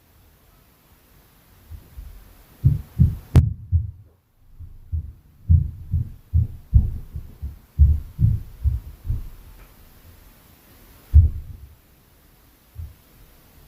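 Dull, low thuds of heavy footsteps coming through the ceiling from the apartment above: uneven stomping, two or three a second for several seconds, then a couple of lone thumps near the end. A sharp click about three seconds in.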